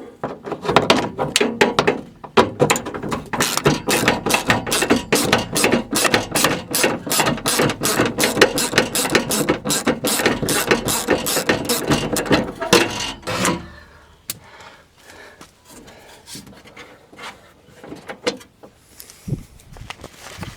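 Hand ratchet with an extension clicking steadily, about five clicks a second, as it backs out the 8mm screws holding a Jeep Patriot door handle. The clicking stops about two-thirds of the way through, leaving a few light knocks of tool and parts handling.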